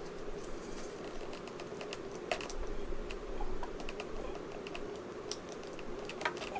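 Small, irregular clicks and taps of hard plastic figure parts being handled and pressed together, a little busier in the middle, over a faint steady hum.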